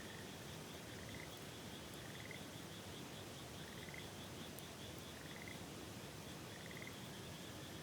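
A frog calling over and over, each call a short pulsed trill that rises slightly in pitch, about every second and a half, over a steady high trilling chorus and the even hiss of a river.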